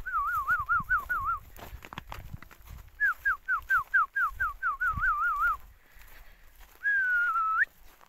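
A man whistling to call his dog: a quick run of wavering notes, then a run of short falling notes, then one long held note that flicks upward at the end.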